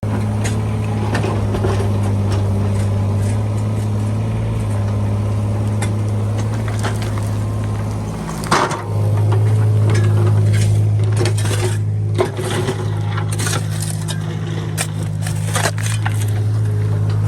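Excavator engine running with a steady low hum while its bucket scrapes and clinks through rocky soil digging a trench. The engine note dips briefly about eight and a half seconds in.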